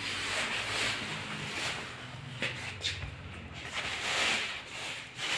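Handling noise from a large plastic-wrapped electric water heater being touched and moved: soft rustles with a few light knocks.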